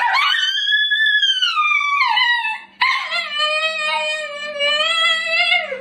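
Husky-type dog howling in two long drawn-out calls. The first is high and rises then falls. The second, after a short break, is lower and steady and drops off at the end.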